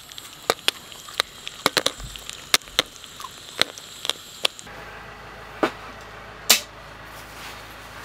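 Popcorn kernels popping in a metal cooking pot: a dozen or so sharp, irregular pops over about four seconds. Two more sharp knocks follow later, the second the loudest.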